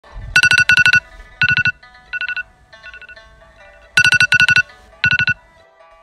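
Electronic ringtone-like melody: bright chiming notes in quick trilled bursts, one short phrase played twice.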